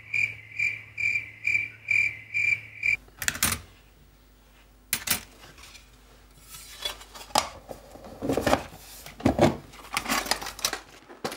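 Crickets chirping in a steady rhythm, about two chirps a second, cutting off abruptly about three seconds in. Then metal instruments, scissors among them, clink and rattle sharply every second or so as they are handled in a metal tin.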